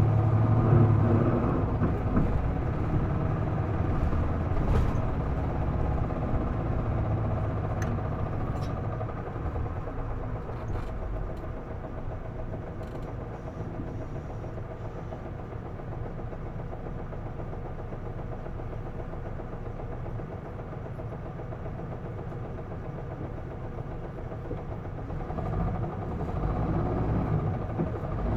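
Isuzu Erga PDG-LV234L2 city bus's diesel engine heard from inside the cabin. It runs loud and hard at first, eases off over roughly the first ten seconds to a quieter steady running, then picks up again near the end.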